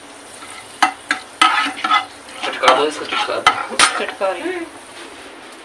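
Fenugreek seeds sizzling in hot mustard oil in a non-stick kadhai, stirred with a steel ladle that scrapes and clicks against the pan several times. The seeds are being fried until they crackle and turn brown.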